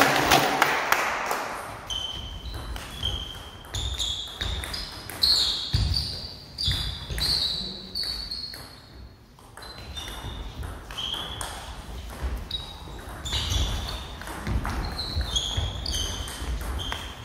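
Table tennis rally: the plastic ball clicking back and forth off the bats and the table, about one to two hits a second. Two runs of play are broken by a short pause about nine seconds in.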